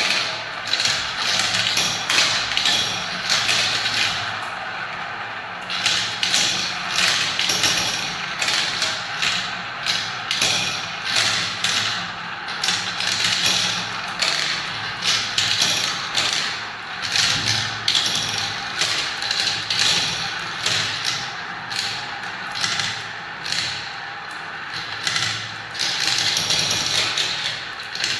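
Marbles rolling down a marble-run track: a continuous rolling rattle with frequent clicks and knocks as the balls hit the track.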